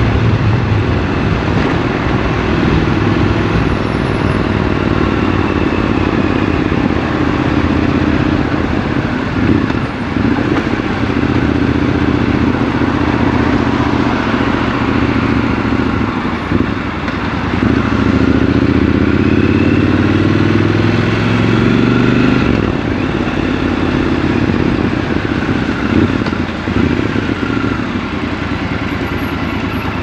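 Triumph Scrambler 1200 XC's 1200 cc parallel-twin engine, heard from the rider's seat while riding in city traffic. A little over halfway through it drops back briefly, then pulls up through the revs with a rising note for several seconds. It then eases off to a lower, steadier note near the end.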